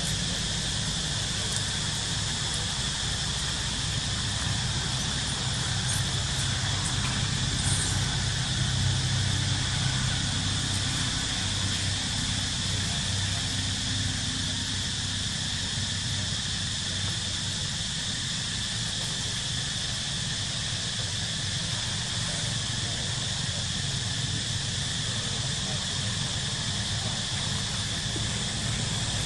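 Steady high-pitched outdoor insect chorus droning without a break, over a faint low rumble that swells slightly about eight to fifteen seconds in.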